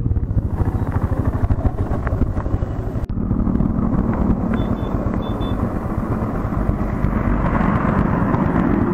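Royal Enfield Himalayan's single-cylinder engine running, with an even low pulse as it pulls away slowly. After a cut it runs steadily at road speed, with wind rush on the microphone growing toward the end.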